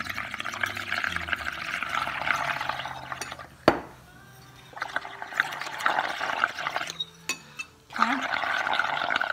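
Air blown through metal drinking straws into bowls of dish soap, paint and water, bubbling and frothing as the suds foam up, in three spells with short pauses between. A single sharp knock a little over a third of the way in.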